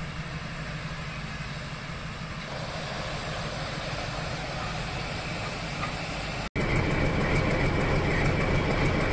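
Nilgiri Mountain Railway X-class steam locomotive running through the station with a steady low rumble and hiss. About two-thirds of the way through the sound cuts abruptly to the louder noise of a crowded station platform.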